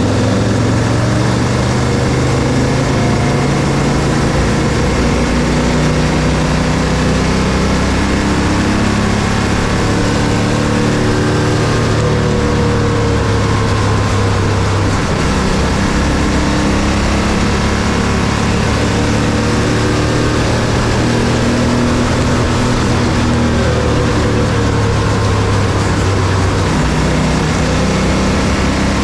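Bandolero race car engine running at sustained high revs on track. The note holds steady, with small rises and dips in pitch.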